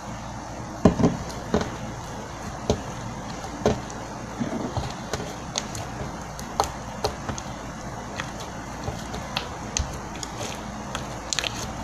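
Old slime, softened with added glue, being squeezed and stretched by hand, making irregular sticky clicks and pops; the loudest comes about a second in.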